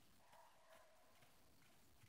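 Faint hoofbeats of a horse walking slowly on gravel.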